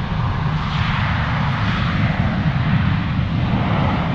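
Two jet airliners, one a United Boeing 737, taking off side by side on parallel runways, their engines at takeoff thrust in a loud, steady rumble with a hiss that grows brighter about a second in.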